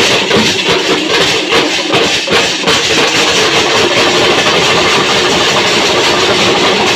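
Many large brass hand cymbals clashing loudly together with drums in a devotional temple band. A beat can be made out in the first few seconds, then it merges into a continuous, dense metallic wash.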